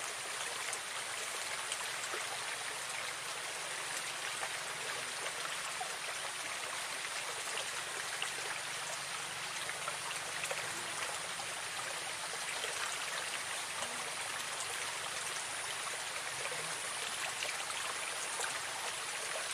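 Steady rush of water flowing along a muddy ditch.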